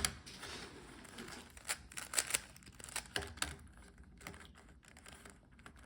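Rubik's cube being turned by hand: irregular plastic clicks and clacks as the layers are twisted, with a cluster of louder turns about two to three seconds in.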